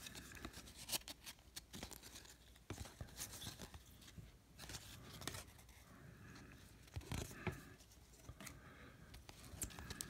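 Faint scraping and clicking of 1998 Bowman baseball cards being thumbed one by one off a stack in the hand, card stock sliding against card stock, with short, irregular snaps throughout.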